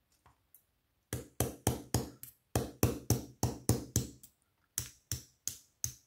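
Thin pin punch struck repeatedly to drive out the retaining pin of a BKS Kurzzylinder lock cylinder: a quick series of sharp taps, about four a second, starting about a second in and broken by two short pauses.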